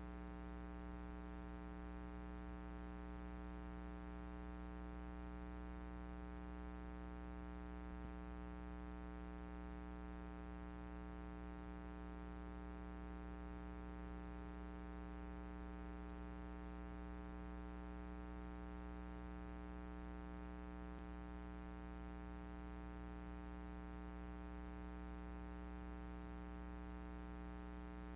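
Steady electrical hum: a low buzz with a stack of evenly spaced overtones and faint hiss, unchanging throughout.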